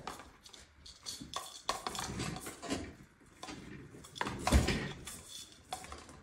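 Branches and ornaments of an artificial Christmas tree rustling and lightly clinking as a cat moves about inside it. The sounds come as scattered rustles and clicks, the loudest about four and a half seconds in.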